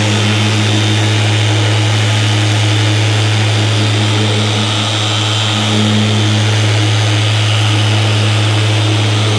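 Cordless rotary-style buffer running steadily at a raised speed setting, its wool pad cutting compound into sanded clear coat: a steady motor hum.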